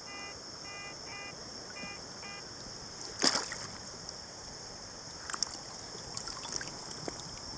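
Shallow river water splashing and trickling around a wading detectorist, with a quick run of short electronic beeps from the Garrett AT Pro metal detector in the first two and a half seconds. A sharp splash or knock comes about three seconds in, and smaller splashes follow near the end.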